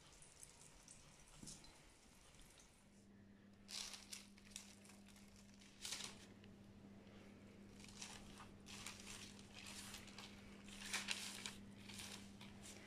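Faint rustling and crinkling as fingers crumble and spread damp grated coconut pulp over baking paper, in scattered short rustles, loudest about four, six and eleven seconds in. A low steady hum starts about three seconds in.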